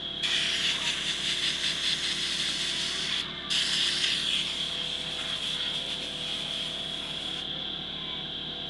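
Rustling and rubbing as the camera's microphone brushes against clothing, in two stretches with a short break a little after three seconds.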